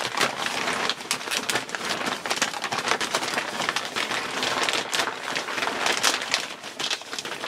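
Thin plastic NBC poncho crinkling and rustling as its hood is pulled up over a gas mask and adjusted by hand, a steady run of fine irregular crackles.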